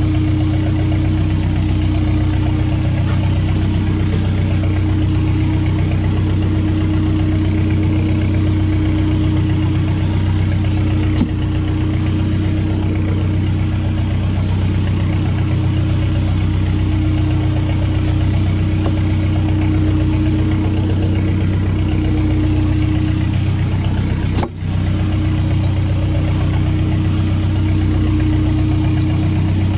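A boat's engine running steadily at constant speed, with one brief click about eleven seconds in.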